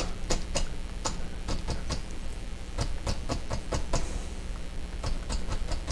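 Large fan brush tapping oil paint onto a stretched canvas to stipple in trees: irregular light taps, a few a second, with a short pause past the middle.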